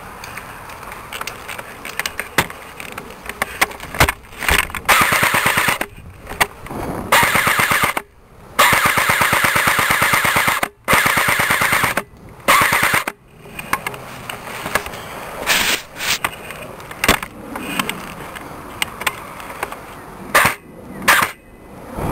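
ICS M4 airsoft electric gun (AEG) firing full-auto: rapid, even rattling bursts of BBs, starting about four seconds in, several long bursts of one to two seconds each, then shorter bursts toward the end.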